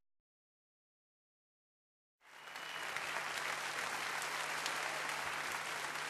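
Total silence for about two seconds, then audience applause fades in and holds steady.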